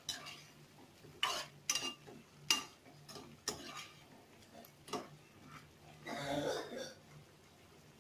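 Spatula stirring chicken curry in a kadai, clinking and scraping against the pan about six times, with a longer, noisier scrape near the end.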